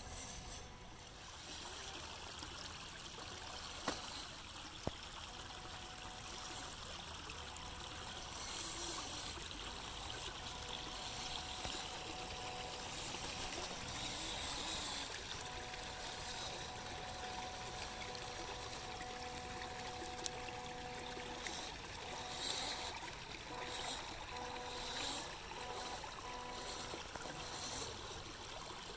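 Shallow creek water running and trickling over a rock shelf, with a faint steady whine that comes and goes and a few sharp clicks.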